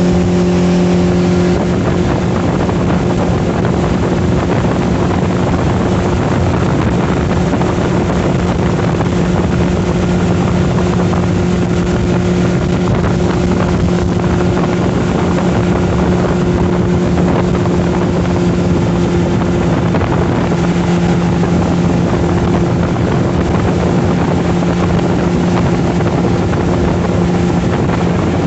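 Motorboat engine running at a steady, even pitch while the boat moves at speed, with a rush of water and wind noise under it.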